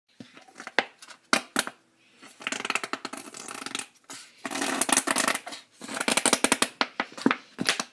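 Kitchen handling noise: rapid clicks, rattles and scraping, thickening into two longer busy stretches about two and a half and four and a half seconds in.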